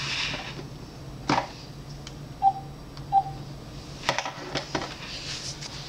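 Quiet room with a sharp click, then two short electronic beeps from a mobile phone, at about the pitch of the ringtone just before, and a few soft clicks and knocks later on.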